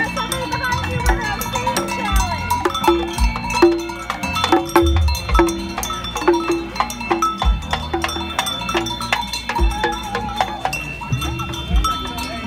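Parade hand percussion: a bell, like a cowbell, struck in a steady beat a little over twice a second, with jingling clicks and occasional deep drum thumps, over the chatter of the marching crowd.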